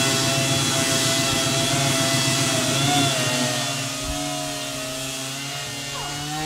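Random orbital sander with a dust-extraction hose running steadily against a fiberglass sailboat hull, a continuous high whine over rough grinding noise, sanding the bottom down for an epoxy repair. The pitch dips briefly about three seconds in, and the sound gets a little quieter about a second later.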